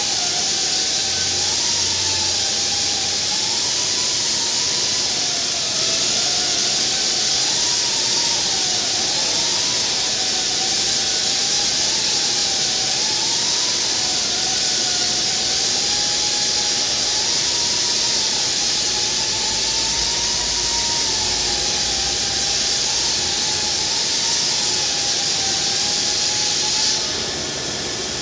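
Granite CNC spindle spinning a segmented diamond tool while an abrasive dressing stick is swept across it to knock down lines: a loud steady hiss with a whine that wavers up and down in pitch. Both cut off abruptly near the end.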